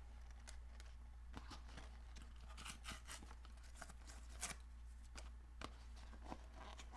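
Paperboard tobacco box being pulled open by its tear strip and mangled by hand: faint, scattered tearing and crackling with short clicks, a little stronger about three and four and a half seconds in.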